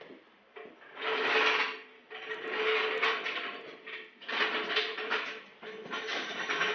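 Hand-tool and wheel-changing work on a car: repeated rasping, grinding bursts of about a second each with short pauses between them, as the wheels are being swapped for winter tires.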